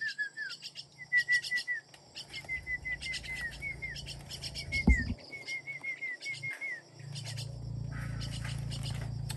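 Starlings calling in quick runs of short, slightly falling chirps, over a constant high clicking chatter. A single thump comes about five seconds in, and a low steady hum starts about seven seconds in.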